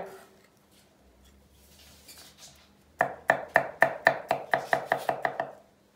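Chef's knife chopping garlic cloves on a wooden cutting board: after a quiet pause, a quick run of about a dozen sharp strikes, around five a second, starting about halfway through.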